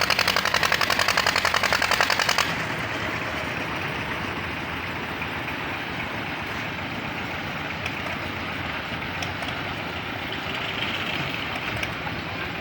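Engine of a concrete-mixing machine running at a building site. A loud, fast, rhythmic pulsing stops abruptly about two and a half seconds in, leaving a steadier, quieter mechanical running.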